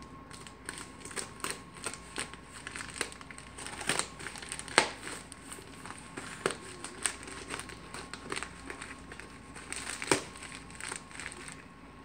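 Scissors cutting open a plastic mailer while the plastic crinkles and crackles as it is handled: irregular snips and rustles, the sharpest about five and ten seconds in.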